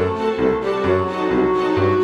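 Background music: a sustained melody over a bass line of short notes, about two a second.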